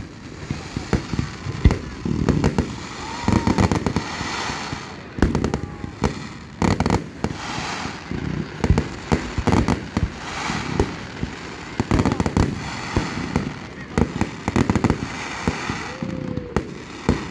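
Aerial fireworks going off in a display: a string of sharp bangs and booms, several in quick succession at times, with crackling bursts between them.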